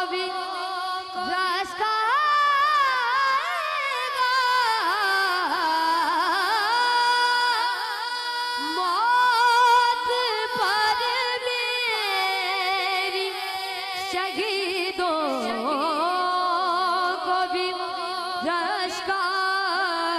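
A boy's voice singing a naat through a microphone, drawing out long held notes that waver and turn in melismatic ornaments.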